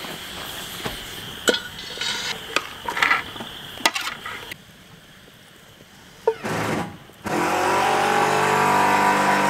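A metal utensil scraping and knocking in a cast iron skillet over a campfire for the first few seconds. About seven seconds in, a small electric motor starts and runs steadily with a loud hum, being used to set up a sleeping bag.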